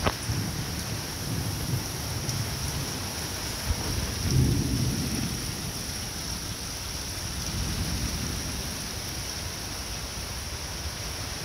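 Heavy summer rain falling steadily in a thunderstorm, with rolls of thunder rumbling underneath: one near the start, the loudest about four seconds in, and a weaker one about eight seconds in.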